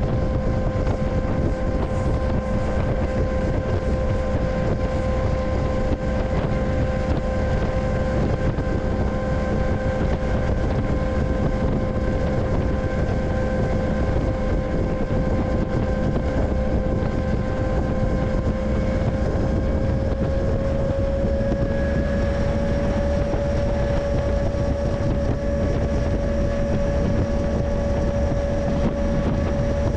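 A freight train in motion: steady low running noise with a constant whine over it that rises slightly in pitch about twenty seconds in.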